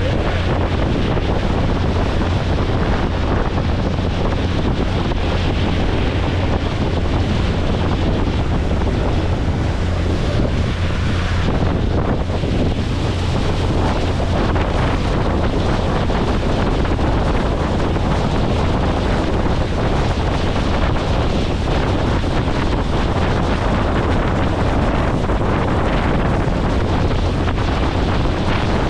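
Steady wind buffeting the microphone over the rush of water, heard aboard a motorboat under way.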